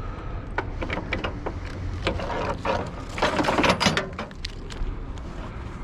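Pieces of scrap metal clinking and clattering as they are handled and set down, a run of short knocks with a denser, louder rattle about three seconds in.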